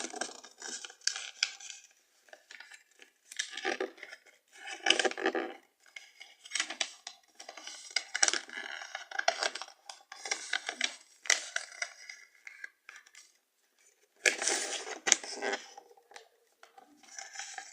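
A sheet of paper being folded by hand, rustling and scraping in irregular bursts.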